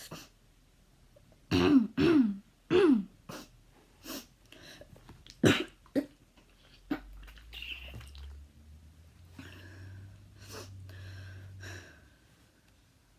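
A girl's habit cough: three loud coughs in quick succession about a second and a half in, each falling in pitch, then several shorter, fainter coughs and throat-clears, with one sharp cough about five and a half seconds in.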